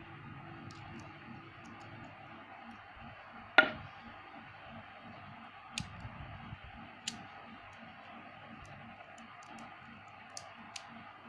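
Small neodymium magnet balls clicking as they snap together and are pulled apart in the hands: one sharp, loud click a few seconds in, then a few fainter clicks later, over a steady low hiss.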